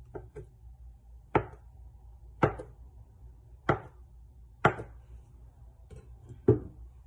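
Kitchen knife slicing a log of bread dough into pieces, the blade knocking on the stone countertop with each cut: about five sharp knocks roughly a second apart, with a few fainter taps between them.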